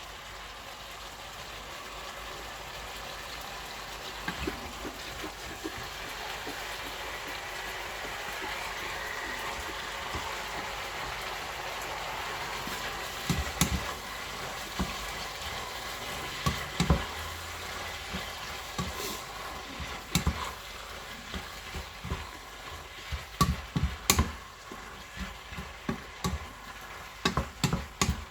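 Stir fry sizzling in a hot pan, a steady hiss that swells a little. About halfway through, a spatula starts knocking and scraping against the pan, in irregular strikes that come thicker near the end.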